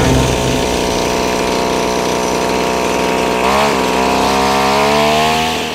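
Riding lawn mower engine running steadily, its pitch dipping sharply and recovering about three and a half seconds in, then rising slightly toward the end.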